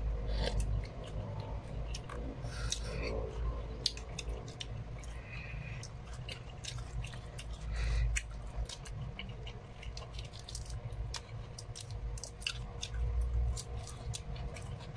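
Close-miked chewing and wet mouth sounds of people eating balut and rice by hand, with many scattered small clicks.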